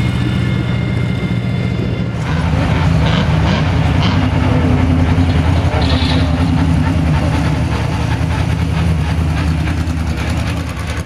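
Lola T70 Mk3B's 5-litre Chevrolet V8 running loud at low, steady revs as the car crawls along the pit lane. The sound changes abruptly about two seconds in, at a cut from one car to another.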